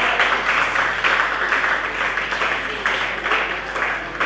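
Audience applauding, a dense patter of clapping that eases slightly toward the end.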